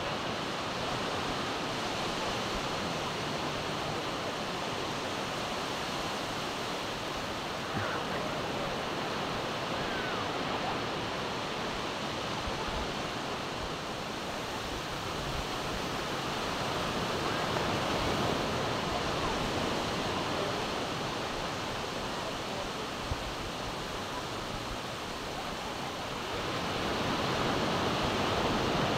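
Sea surf breaking and washing up a sandy beach: a steady rush that swells louder about two thirds of the way through and again near the end.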